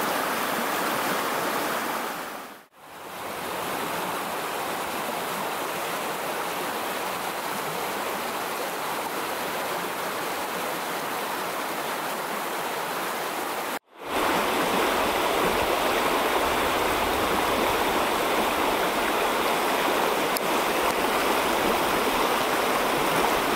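Fast creek water rushing over rocks through riffled pocket water, a steady rush. It dips out briefly about three seconds in and cuts off abruptly about halfway through, then comes back slightly louder and fuller.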